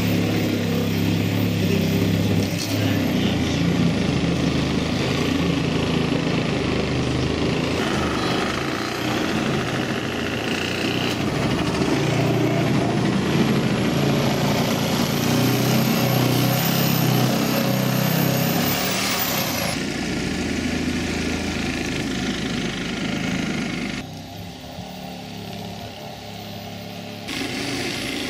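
Truck engine running steadily, with abrupt changes in level and texture several times where the footage is cut.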